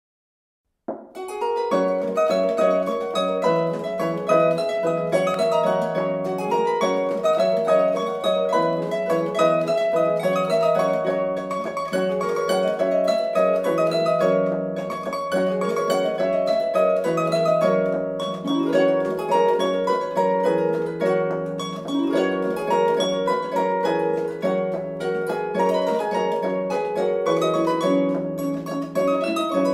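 Several layered concert harp parts play a lively dance tune together, with dense plucked notes ringing over a steady low line. The music starts about a second in.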